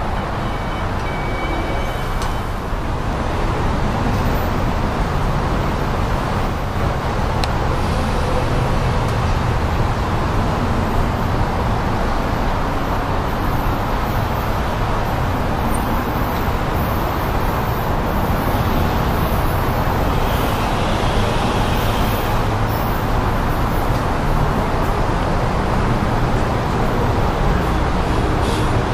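Steady low rumbling outdoor background noise, even in level throughout, with no distinct event standing out.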